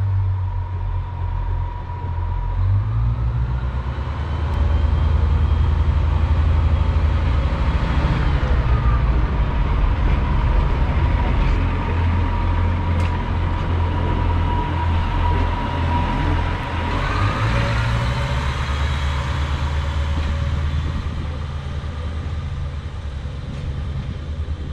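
Class 142 Pacer diesel railbus under power as it pulls away and runs past, its underfloor diesel engine running hard with a thin steady whine above it. The engine note steps up about two and a half seconds in and again near the end of the second third, where the whine also rises.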